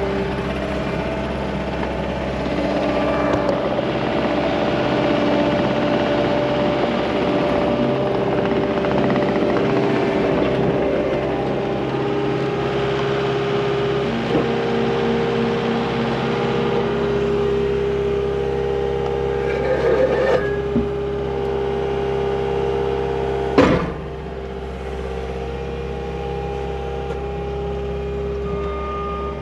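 Cat 289D3 compact track loader's diesel engine running, its pitch stepping up and down as the load changes. A short clatter comes about 20 seconds in, then a single sharp bang, the loudest sound, a few seconds before the end, after which the machine runs a little quieter.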